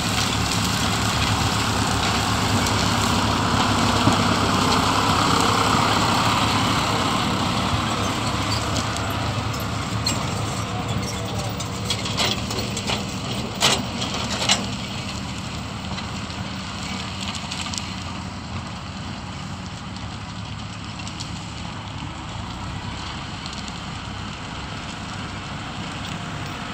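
Tractor engines and a sugar beet harvester running steadily, louder over the first several seconds and then easing off, with a few sharp knocks about halfway through.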